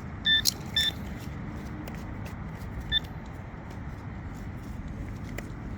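A handheld metal detector pinpointer gives short, even beeps as it is passed over the dug soil: twice in the first second, then once about three seconds in. The beeps signal a metal target close to the probe tip. Low wind rumble runs underneath.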